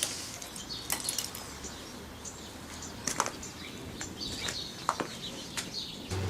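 Birds chirping in the background, with a handful of sharp light clicks and clinks scattered through. A steady low hum starts just before the end.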